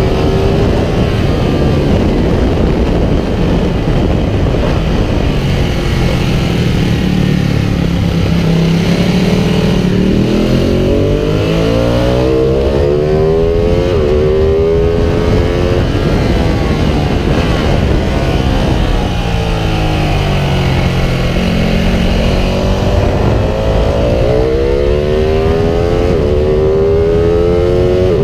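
Ducati Panigale 1199R's 1198 cc V-twin engine at track speed, heard from on board under heavy wind noise. The revs fall away as it slows. Twice the engine climbs again in a run of rising steps as it accelerates and upshifts, once around the middle and once near the end.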